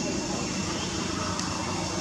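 Steady outdoor background noise: an even hiss over a low rumble, with no distinct calls or knocks.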